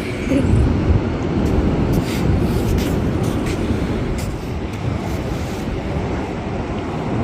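Wind buffeting the microphone: a steady, rough low rumble with a few brief gusty crackles.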